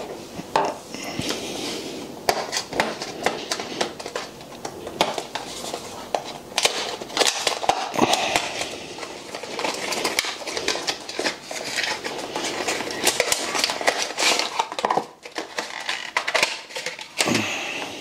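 Handling of a small cardboard box and its packaging while a Ring rechargeable battery pack is taken out: a dense run of rustles, scrapes and small clicks against a tabletop.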